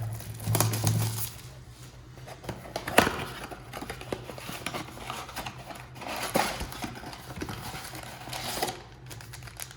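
Cardboard trading-card blaster box being opened and its foil packs handled: scattered clicks and rustling, with a sharp click about three seconds in.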